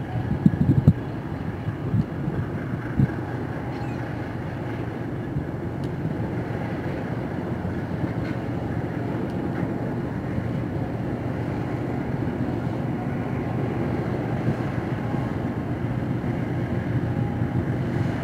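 Purse seine fishing vessel's diesel engine running steadily as the ship passes close, a low rumble that grows slightly louder toward the end. Wind buffets the microphone a few times in the first second or so.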